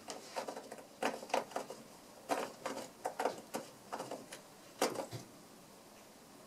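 A cat's claws scratching a cardboard scratcher: several quick bursts of short, raspy strokes.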